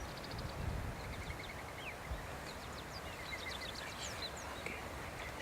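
Wild songbirds chirping and trilling in short, high calls and rapid trills, over a soft outdoor background with a few faint low bumps.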